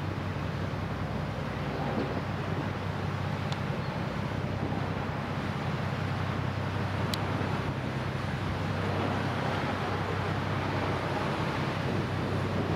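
Steady low engine drone of a large passing ship, with wind and water noise.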